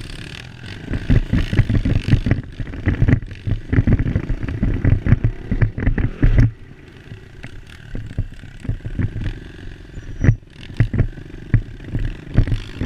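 Dirt bike engine running as the bike is ridden over a bumpy dirt trail, heard from a camera on the bike, with many sharp rattling knocks from the ruts. It is loud and busy for the first half, then eases about halfway through, with scattered knocks after.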